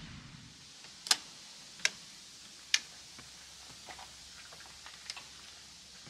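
Three sharp clicks less than a second apart, then a few faint ticks, as a mesh insect screen is fastened around a van's open rear hatch.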